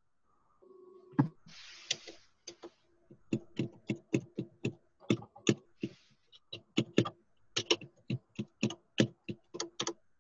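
Irregular clicking of computer keys being typed on, several keystrokes a second, with a faint steady hum underneath and two short hissy bursts.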